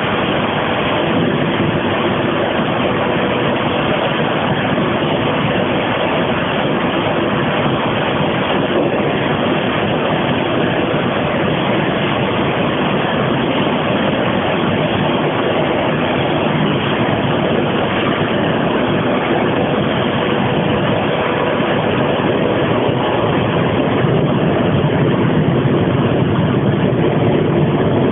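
Gas-fired burner of a steel-plant preheater firing, a steady roar of flame and combustion air with a faint hum, growing slightly louder in the last few seconds.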